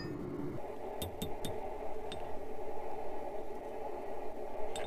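Blacksmith's hammer striking hot steel on an anvil: three quick ringing blows about a second in, one more a second later, and two near the end, over a steady hum.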